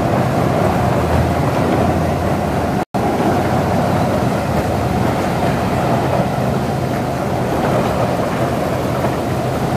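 Several bumper boats' small motors running together with churning water, a steady continuous din. The sound cuts out for an instant about three seconds in.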